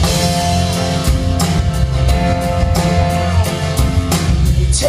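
Live band music, loud through the hall: strummed acoustic guitars over a steady drum-kit beat, with held notes running above.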